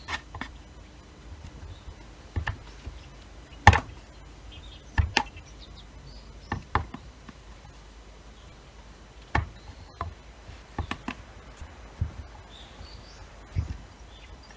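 Plastic bench scraper chopping cold, flour-dusted butter on a wooden cutting board: irregular sharp knocks of the blade striking the board, roughly one a second, the loudest about four seconds in.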